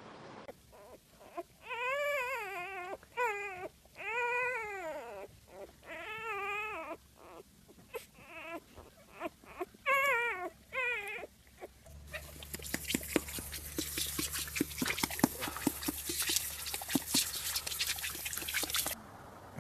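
An animal's repeated whining cries, each a pitched wail that rises and falls, a dozen or so over the first eleven seconds. Then a crackly, clicking noise over a low steady hum.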